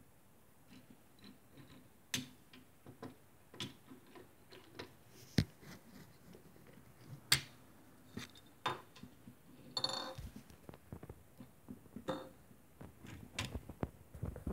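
Die-cast Majorette Jeep Cherokee sheriff toy car being handled and pushed on a wooden tabletop: irregular small clicks and knocks of its wheels and body on the wood, with a short rattle about ten seconds in.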